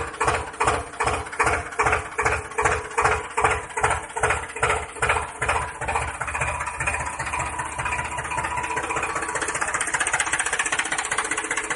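Tractor engine chugging at about three beats a second, then picking up into a faster, even run about halfway through.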